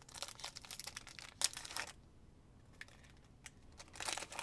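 Foil trading-card pack wrapper crinkling and tearing as it is opened, in rustling, crackly bursts: about two seconds of it, a short lull, then more near the end.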